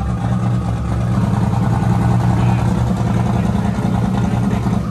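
Twin-turbo 427 cubic inch Dart-based LS V8 in a Buick Skylark running loud and steady under load on a hub dyno, its level dropping sharply right at the end as the run comes off.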